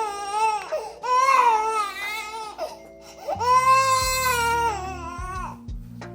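A baby crying in three long, high wails, the last and longest about three seconds in. Music with steady sustained notes plays underneath.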